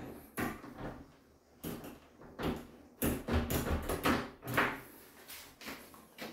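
A metal door lever and its lockset being worked by hand and with a screwdriver: a string of clicks, knocks and rattles, sparse at first and coming thick and fast from about three seconds in.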